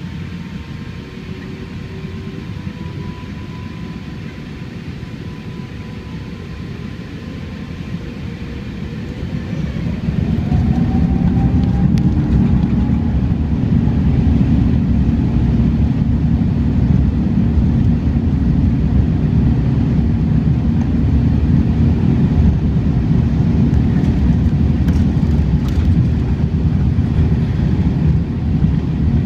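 Rolls-Royce Trent XWB engines of an Airbus A350-900, heard from inside the passenger cabin: a steady hum with a faint whine, then about a third of the way in the engines spool up to takeoff thrust, the whine rising in pitch and the noise growing louder into the steady low rumble of the takeoff roll.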